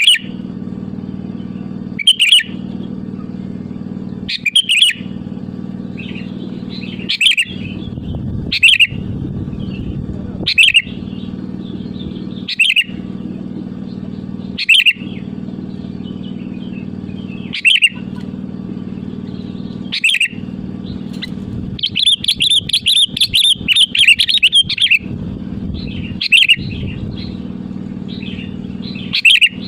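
Sooty-headed bulbul (kutilang) calling: short loud phrases every two seconds or so, with a longer run of rapid chattering notes about 22 to 25 seconds in. A steady low hum runs underneath.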